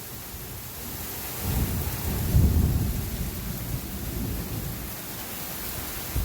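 A roll of thunder over steady rain: the rumble builds about a second and a half in, peaks near the middle and fades away, with the rain's hiss throughout. A brief low thump right at the end.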